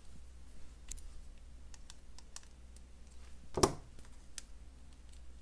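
Light clicks and taps of jewelry pliers and copper chain being handled while a jump ring is opened and a charm attached, with one sharper click about two-thirds of the way through.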